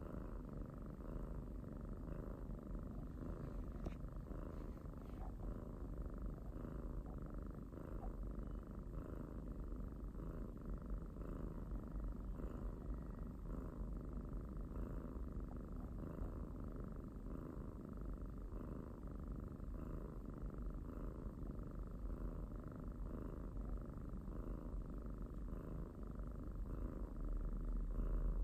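Kitten purring steadily, the purr pulsing evenly about once a second with each breath.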